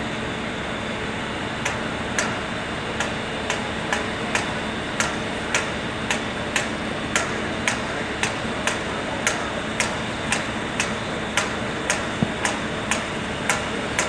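Hammer strikes on metal at an even pace of about two a second, starting near two seconds in, over a steady background hum; fits linemen hammering at railway overhead-line (catenary) fittings.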